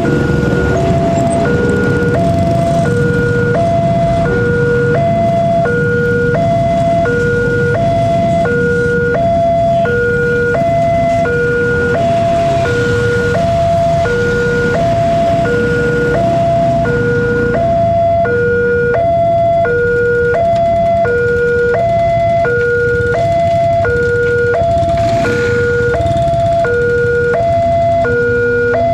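Railroad level-crossing warning alarm sounding a steady two-tone hi-lo chime, switching pitch about every half second, which signals an approaching train. Underneath it is the low engine rumble of passing motorcycles.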